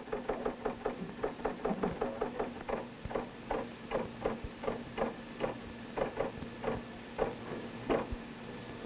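Keys being typed on a computer terminal keyboard: a run of short, sharp clacks at about three or four a second, uneven in spacing, over a steady faint electrical hum.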